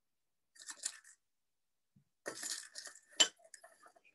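Light clinking and rattling of small candy decorations being picked out of a small dish, in two short spells about half a second and two seconds in, ending with one sharp clink about three seconds in.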